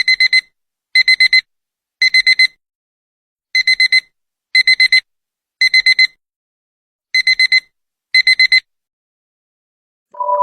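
Digital alarm clock beeping: quick bursts of four high-pitched beeps about once a second, three bursts then a short pause, the pattern repeating until it stops about eight and a half seconds in. Synthesizer music starts just at the end.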